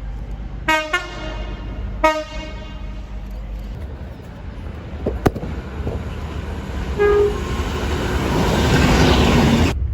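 Train horn sounding two short blasts about a second and a half apart, then a third brief toot about seven seconds in. A rushing train noise then swells loud and cuts off suddenly near the end.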